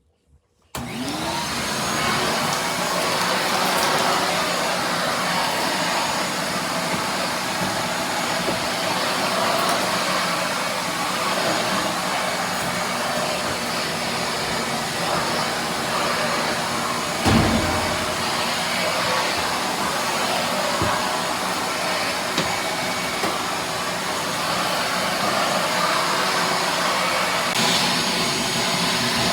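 Shop-Vac wet/dry vacuum switching on under a second in, then running steadily while vacuuming. Partway through there is one short, louder low knock, and near the end the sound turns a little brighter and more hissing.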